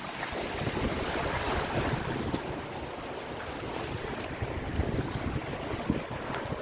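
Strong coastal wind buffeting the microphone: a steady rushing noise with gusty low rumbles, swelling slightly about a second in.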